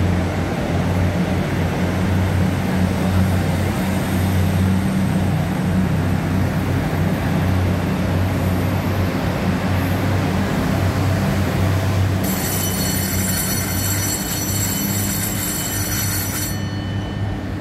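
EMU3000 electric multiple unit standing at the platform with its doors open, its onboard equipment giving a steady low hum. About twelve seconds in, a high electronic ringing tone sounds for roughly four seconds, then stops.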